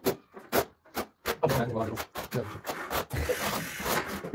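A few short knocks, then about three seconds of continuous rough scraping and rubbing from floor-tiling work, such as tools or tiles worked over mortar.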